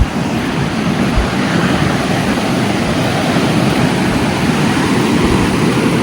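Heavy Atlantic Ocean surf: waves breaking and washing up the beach in a steady rush of water noise.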